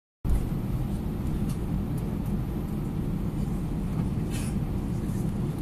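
Steady low rumble inside the passenger cabin of an Airbus A320 taxiing before takeoff, its engines running at low power. A few faint clicks, and a brief rustle about four seconds in.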